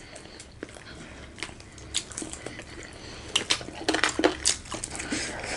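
Close-miked eating sounds: chewing, with scattered small clicks and crackles of food and plate, a few louder ones about three to four and a half seconds in.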